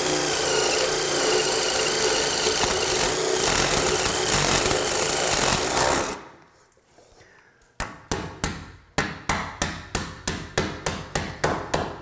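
A power drill bores into a wooden door for about six seconds, then stops abruptly. After a short pause, a hammer starts a quick, even series of sharp taps, about three a second.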